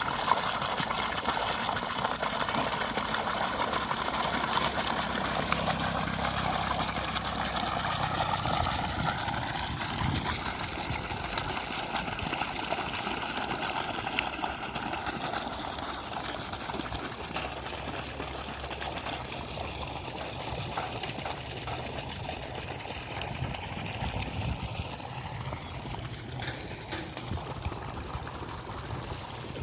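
Steady splashing and trickling of water, easing off slightly toward the end.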